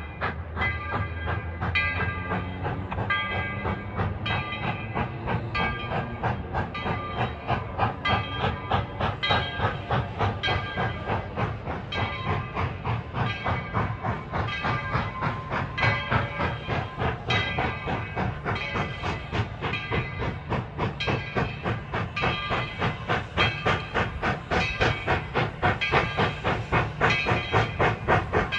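Steam locomotive running, its exhaust beating in a fast even rhythm, louder near the end.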